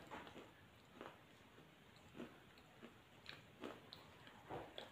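Faint eating sounds close to the microphone: a person chewing, with soft, irregular mouth clicks and smacks.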